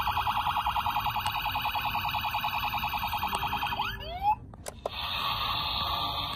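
Tonka Storm Chasers toy truck's electronic siren sound effect playing through its small speaker, set off by its push-button light bar: a fast-pulsing siren. The siren winds down with falling glides about four seconds in. A click follows, then a different steady electronic sound from about five seconds in.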